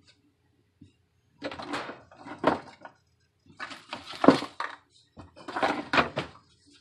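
Three bouts of rustling and clattering from kitchenware being handled, each about a second long with sharp knocks in them.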